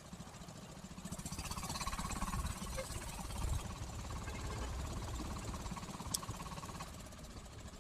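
Diesel engine running, with a rapid, even pulsing; a steady whine joins about a second in and stops near the end.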